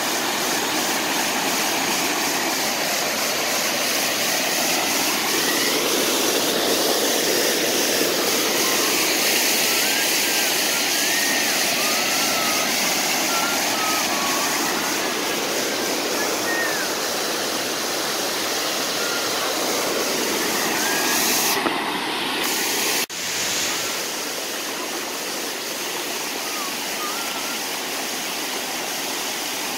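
Waterfall rushing over wide rock ledges into a creek swollen after rain: a steady, loud rush of falling water. About 23 seconds in it breaks off for an instant and carries on a little quieter.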